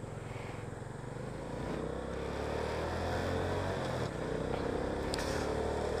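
Motorcycle engine pulling away, its pitch climbing, dropping briefly about four seconds in, then climbing again, louder toward the end.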